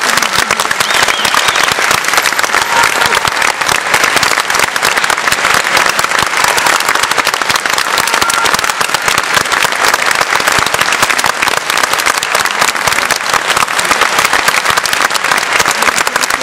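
Theatre audience applauding, dense and steady clapping that holds throughout.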